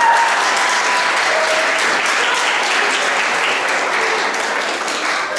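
A small crowd applauding, hands clapping densely together, with a few voices calling out over it near the start; the clapping eases off slightly toward the end.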